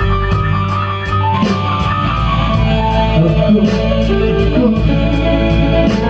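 Live blues-rock band playing an instrumental passage: electric guitar over bass and drums, with a steady cymbal beat.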